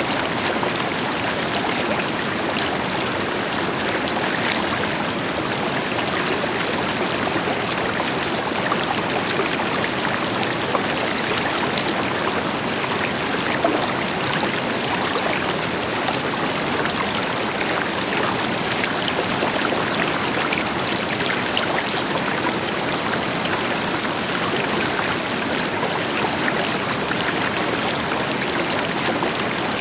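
River water flowing steadily over rocks, with the deeper rush of a waterfall behind it: a continuous, even rushing with small splashes and trickles.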